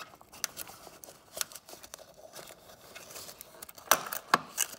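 Crinkling and light clicking as electrical tape is cut and peeled off a car's wiring loom, with two sharper clicks near the end.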